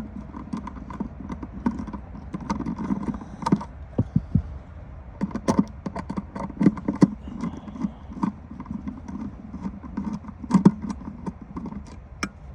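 Irregular clicks, taps and small knocks of hands and a screwdriver working at the amplifier's power wire terminals.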